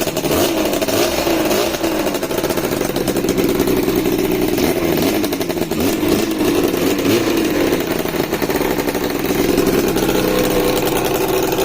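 Newly assembled Max 200 twin-cylinder two-stroke engine running on its first run. Its revs rise and fall in small blips for the first seven seconds or so, then it settles to a steadier run.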